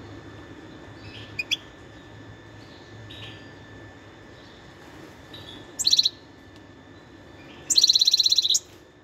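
European goldfinch singing: a few faint high chirps, then a short sharp call about six seconds in and a fast, rattling trill near the end.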